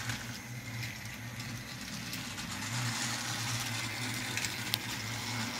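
Motorised TrackMaster toy trains running along plastic track: a steady small-motor hum with the noise of wheels on the track, and a few light clicks near the end.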